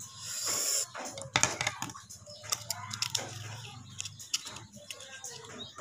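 Cooked crab shell being pulled apart and picked with the fingers: a scattered run of sharp clicks and cracks, after a short hiss in the first second.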